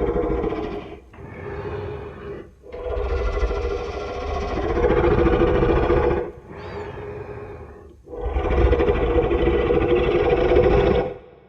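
Giant-monster roar sound effect from the Godzilla films: several long roars in a row with short breaks between them, the last cutting off sharply near the end.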